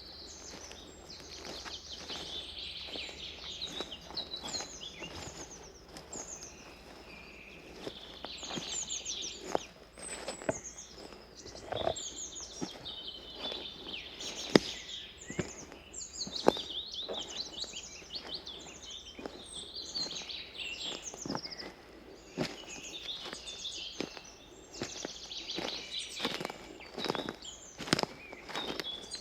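Several songbirds singing in overlapping phrases, with a person's footsteps on a forest path about once a second; a couple of the steps are louder.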